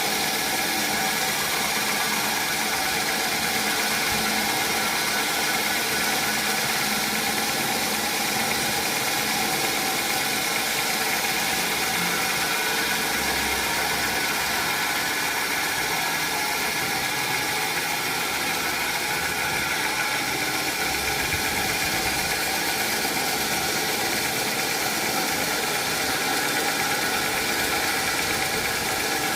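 Sawmill machinery running steadily: a constant mechanical drone with a few steady tones over it, unchanging throughout.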